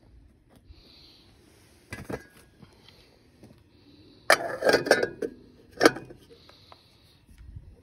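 Metal pan lid clinking and clattering as it is picked up and set onto a small frying pan on a camp stove: a couple of light clinks about two seconds in, a burst of sharp rattles around the middle, and one more clank a second later.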